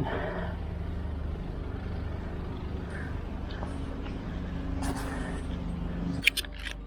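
A steady low engine hum that drops away about six seconds in, followed by a few sharp clicks.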